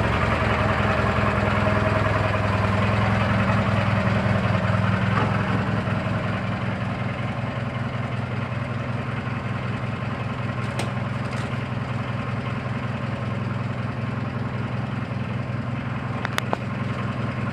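Briggs & Stratton 18 hp opposed-twin engine running steadily with a fast, even knocking chatter; the owner does not know its cause. It drops a little in level about six seconds in, and there are a couple of sharp clicks near the end.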